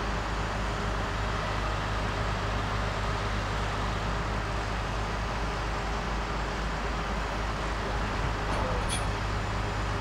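Heavy wrecker trucks' diesel engines running steadily, a constant low drone with no change in speed, and a faint click near the end.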